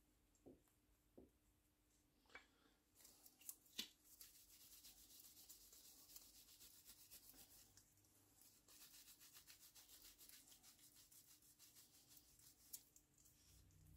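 Faint, fast rubbing of a cloth over a wooden carving-gouge handle, working oil into the wood, with a few light knocks in the first four seconds.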